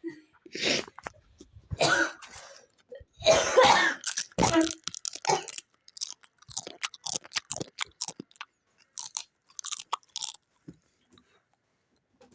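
Several hard coughs in the first half, caught from tarhana crumbs in the throat, then crisp crunching and chewing of dried tarhana for a few seconds.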